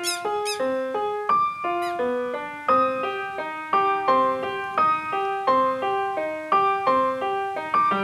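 Background music: a keyboard melody of short, even notes, several a second. Near the start there are a few brief, high, falling chirps.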